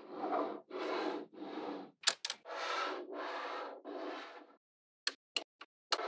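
Small magnetic balls rattling and crackling in about six short bursts as a slab of them is handled and pressed into place, with a few sharp clicks of balls snapping together near the end.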